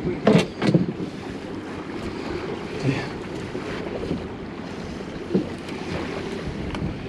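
Wind buffeting the microphone over the wash of sea water around a small fishing boat, with a couple of sharp knocks just under a second in and a few fainter ones later.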